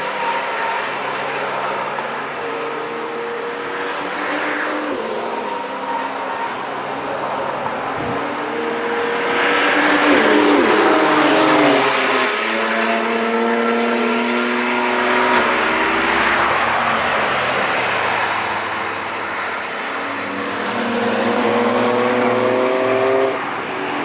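Several cars passing one after another on a race track, their engines revving up and changing gear as they drive by, with the loudest pass about ten seconds in.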